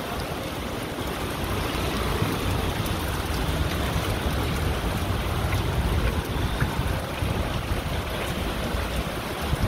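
Heavy rain pouring down onto a paved street in a storm, a steady hiss of falling and splashing water, with a low rumble of wind on the microphone underneath.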